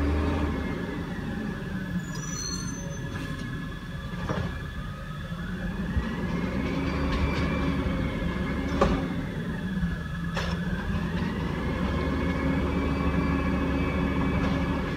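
Peterbilt 320 garbage truck with an Amrep automated side-loader arm dumping a cart: the engine revs to drive the hydraulics, with a whine that rises and falls twice. Several sharp knocks as the cart is lifted, shaken and set back down, the loudest about nine seconds in.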